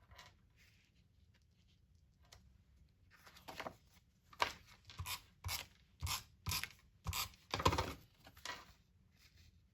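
Cardstock being worked by hand: after a quiet start, about nine short rustling rubbing strokes at roughly two a second, as the paper is pressed and smoothed down.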